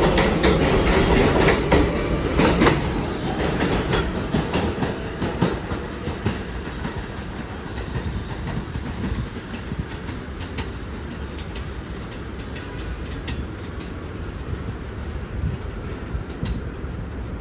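R142A subway train moving away along the track, its wheels clacking over the rail joints. It is loud at first and fades to a steady, quieter rumble as it recedes.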